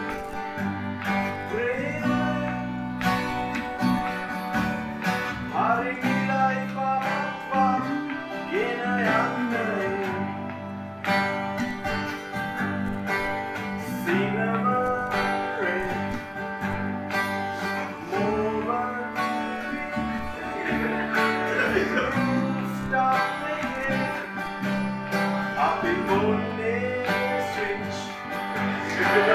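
Live acoustic band music: a strummed acoustic guitar with bass and harmonium, and a male voice singing the melody.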